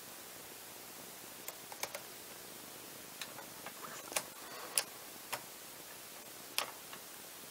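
Precision screwdriver turning a small screw in a camera lens's bayonet mount: about ten light, irregular ticks, a few a second at most, with the sharpest a little past the middle.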